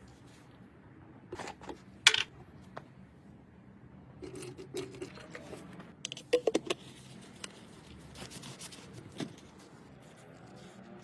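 Scattered metallic clicks and clinks of hand tools and small metal parts being handled, loudest about two seconds in, with a quick cluster of clinks a little past the middle.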